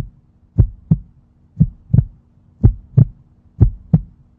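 Heartbeat sound effect: a double lub-dub thump repeating about once a second, over a faint steady hum.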